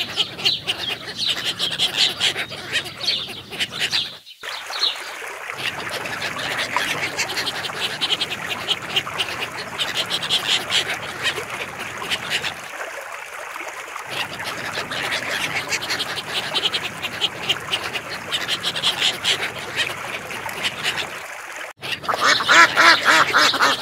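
A flock of ducks quacking in a dense, continuous chorus that breaks off briefly a few times, with higher peeping calls near the end.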